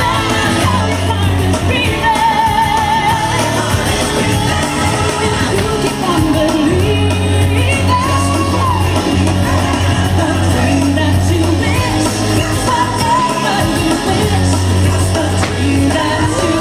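Loud pop music with singing and a heavy steady bass, over shouts and yells from a crowd.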